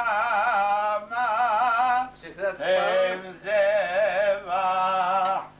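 A man singing in a wavering, ornamented voice, in about five held phrases with short breaks between them.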